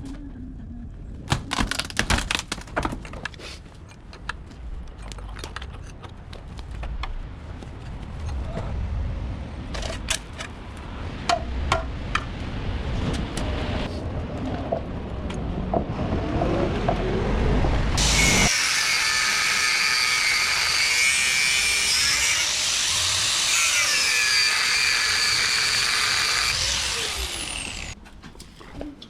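Fence demolition and building work: a run of sharp knocks and bangs, then about two-thirds of the way in a power tool runs loudly and steadily for about ten seconds with a high whine that shifts in pitch, before stopping abruptly.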